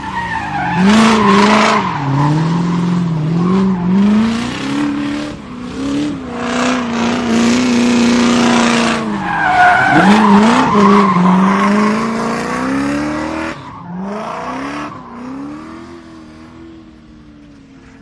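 Race car engine revving up and down, with tyre squeal. It fades out over the last few seconds.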